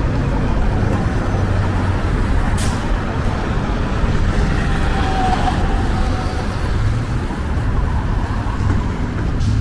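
City road traffic passing: a steady rumble of cars and buses, with a short hiss about two and a half seconds in and a brief high tone near the middle.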